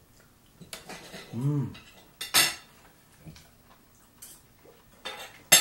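Metal cutlery clinking and scraping on ceramic dinner plates during a meal, in scattered sharp clinks. One loud clink comes about two and a half seconds in, and a cluster of louder ones comes near the end.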